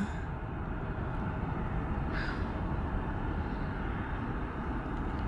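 Steady low rumble of distant airliner jet engines across an airfield, with a faint short hiss a little over two seconds in.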